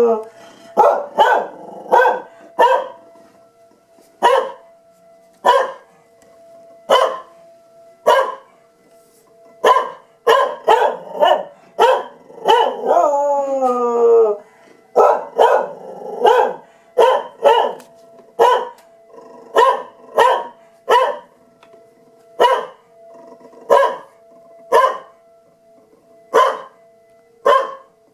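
A dog barking over and over in sharp single barks, about one or two a second, with one howl of about two seconds, falling in pitch, about halfway through. It is reacting to a siren test, whose steady tone sounds faintly beneath the barks.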